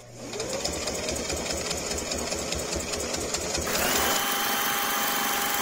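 Electric sewing machine stitching a hem, the needle running in a fast, even rhythm under steady foot-pedal control. About two-thirds of the way in the sound turns brighter and a steady whine comes in.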